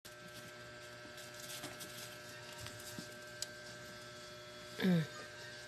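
Steady low electrical hum with a few faint ticks, and one brief voice sound falling in pitch about five seconds in.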